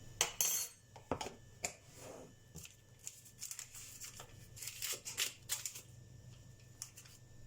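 Irregular soft clicks, scrapes and rustling from measuring spoons and ingredient packets being handled while dry spices are spooned into the dough mixture.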